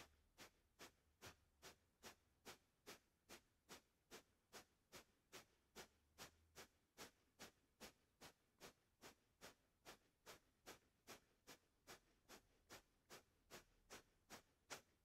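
Breath of fire (kapalabhati pumping breath): a person's fast, sharp exhales forced out through the nose, in a faint, very even rhythm of about two and a half a second.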